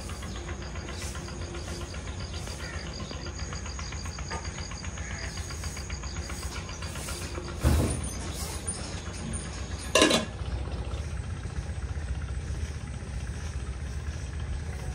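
A steady low rumble, with two sharp knocks, one about halfway through and the second about two and a half seconds later.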